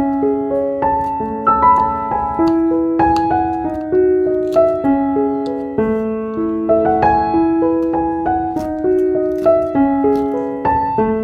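Background music: a piano or keyboard melody of single struck notes, each ringing and fading as the next begins.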